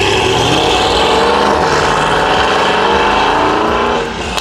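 Mercedes-AMG GT four-door coupe's engine and exhaust as the car accelerates away, the engine note changing in pitch as it pulls off. The sound drops off about four seconds in.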